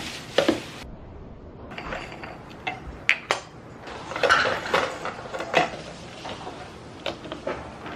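Hard parts being handled: a string of irregular clicks, knocks and clinks, several of them sharp.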